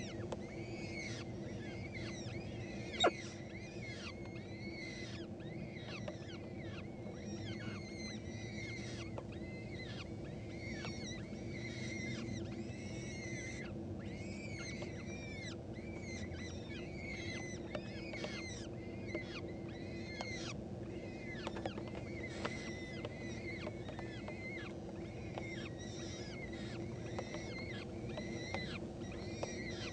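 Peregrine falcon chicks calling to be fed: a stream of short, high, arched cheeps, several a second. Under them runs a steady low hum, and there is one sharp click about three seconds in.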